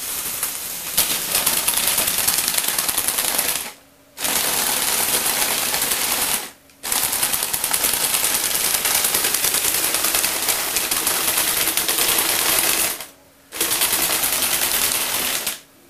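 Lego Technic tracked rover driving on a wooden floor: its electric motors, gearing and plastic tracks make a loud, rapid clatter. It stops briefly three times, about 4, 6.5 and 13 seconds in, then starts again.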